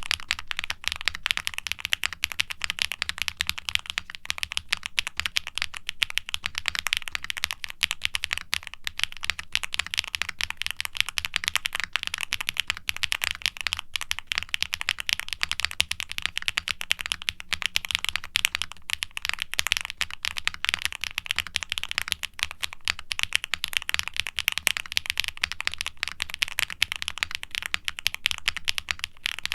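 Continuous fast typing on a QwertyKeys QK65 aluminium mechanical keyboard with factory-lubed HMX Poro linear switches, a polycarbonate plate and GMK double-shot ABS keycaps. The keystrokes come as a dense, even stream of clacks, somewhat muted by the board's foam and silicone dampening.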